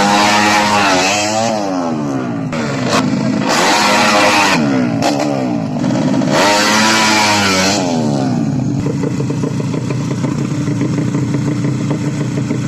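Race-tuned 130 cc underbone motorcycle engines revving hard, their pitch climbing and then dropping at each gear change in three loud surges. After about nine seconds a lower, steadier engine sound follows.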